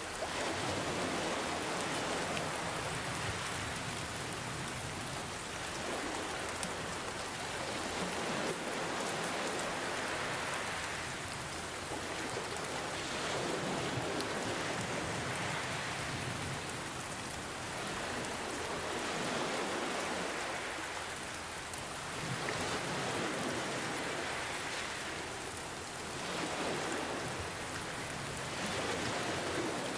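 Steady rain falling, mixed with ocean waves that swell and wash in every few seconds.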